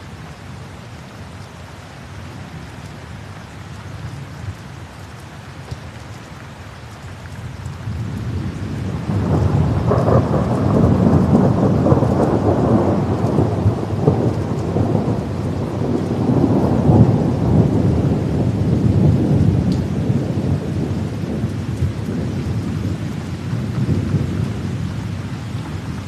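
Steady rain, with a long rolling rumble of thunder that builds from about eight seconds in, is loudest through the middle and slowly dies away near the end.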